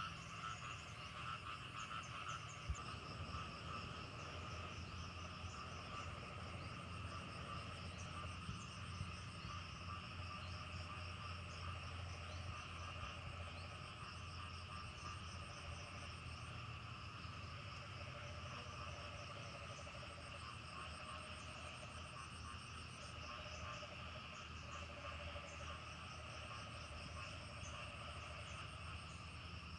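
A dense, continuous chorus of frogs calling in a flooded rice paddy, with insects trilling in pulsed runs high above it that start and stop every few seconds.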